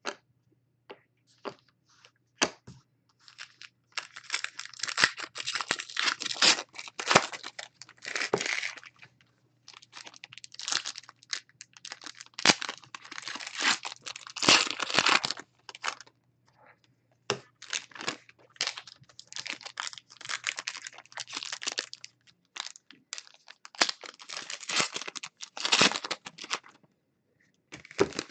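Foil trading-card packs being torn open and handled, the wrappers crinkling and ripping in four long stretches with sharp snaps in between.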